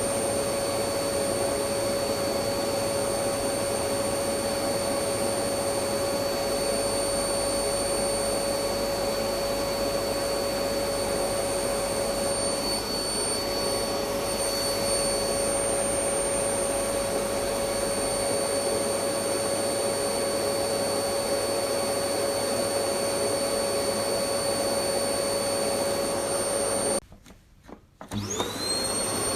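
Electric vacuum cleaner running steadily, a loud rushing of air with a constant motor whine. Near the end it cuts out for about a second and starts again, its whine rising as the motor spins back up.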